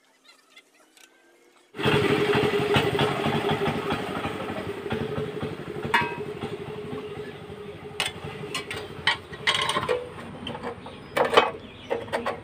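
A small single-cylinder diesel engine bursts into running about two seconds in, with a fast, even firing beat that gradually quietens. A few sharp knocks come near the end.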